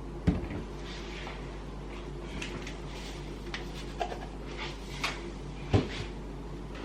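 Scattered kitchen handling knocks: a sharp thump just after the start and another near the end, with lighter clicks and knocks between.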